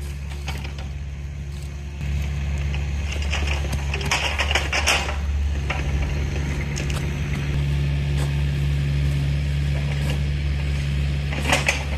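An engine running steadily, with a low hum that grows louder about two seconds in. Metallic clanks and rattles come over it now and then, in a cluster about four to five seconds in and again near the end.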